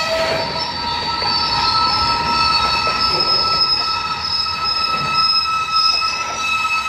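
Freight cars rolling past with their wheels squealing under braking: several high, steady squeals at once, some dropping out and new, higher ones coming in about a second in, over the rumble and clatter of the wheels on the rails.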